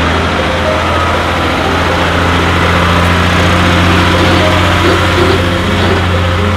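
4x4 expedition truck's engine running steadily at low revs as the truck crawls along a muddy track.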